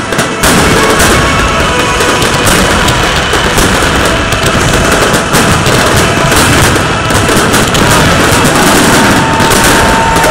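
Aerial fireworks shells bursting in a dense, continuous barrage: rapid overlapping bangs and crackling with hardly a gap, loud throughout.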